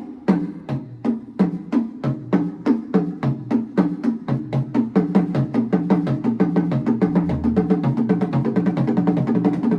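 Live band playing, with drums keeping a fast, even beat of about five strikes a second under a line of changing pitched notes.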